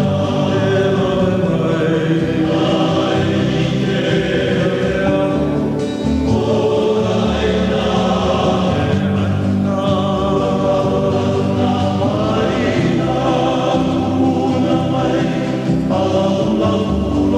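Choral music: many voices singing held chords that change every few seconds.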